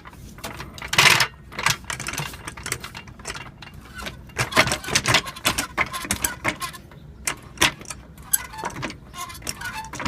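A car jack being worked under the car: many irregular metal clicks and clinks, some with a brief ring.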